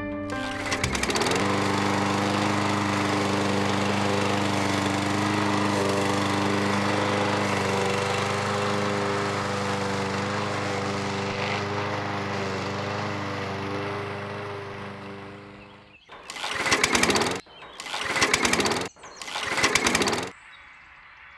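Red walk-behind gas lawn mower engine running steadily, then fading out, followed by three loud surges of about a second each near the end.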